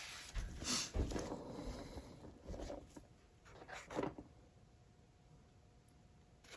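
Scattered knocks and scuffs from a paint-pouring turntable being turned by hand, quieter after about four seconds.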